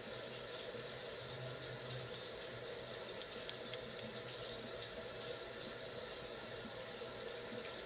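Kitchen sink tap running steadily as hands are washed under it.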